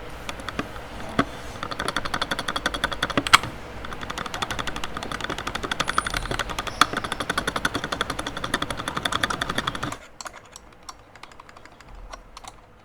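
Fast typing on an RK61 mechanical keyboard with clicky blue switches: a dense run of many keystrokes a second, with a few louder strikes standing out. About ten seconds in, it thins to a few faint taps.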